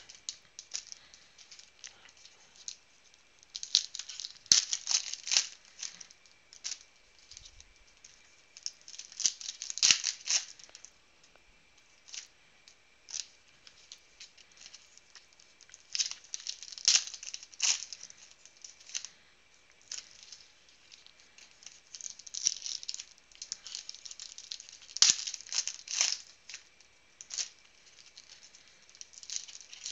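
Foil trading-card pack wrappers crinkling and tearing open, with cards being shuffled and handled, in clusters of crackling every few seconds.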